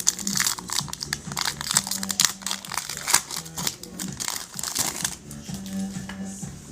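Crinkling and tearing of a foil trading-card pack wrapper as it is ripped open, a dense run of crackles that stops about five seconds in. Background music plays underneath.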